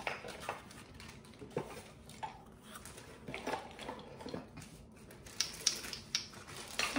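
Light, irregular clicking and clattering of small wooden toy pieces, the beads and pegs of a wooden pegboard, as they are handled, with a plastic bag crinkling.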